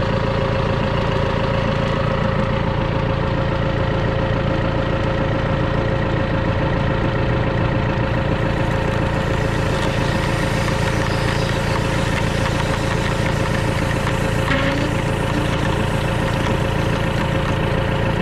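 John Deere tractor engine running steadily with the PTO engaged, spinning a roller pump that builds water pressure in the sprayer manifold. A steady tone sits over the engine hum.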